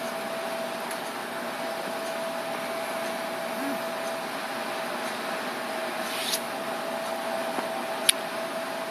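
Steady room tone: an even hiss with a faint constant whine. A light click comes about six seconds in and a sharper click about eight seconds in.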